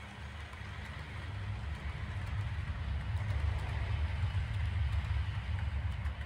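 Model railway freight train rolling along the layout track: a steady low rumble of wheels on rail that swells louder past the middle and eases near the end.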